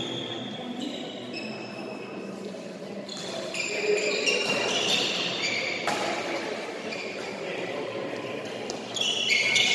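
A badminton rally in a large echoing hall: sharp racket strikes on the shuttlecock and repeated high squeaks of court shoes on the sports floor.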